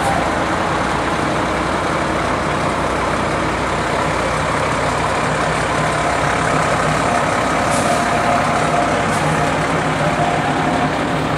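Fire rescue truck's diesel engine running steadily as the truck passes slowly close by.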